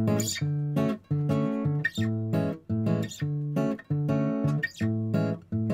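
Background music: an acoustic guitar strumming chords in a steady rhythm, about two strokes a second.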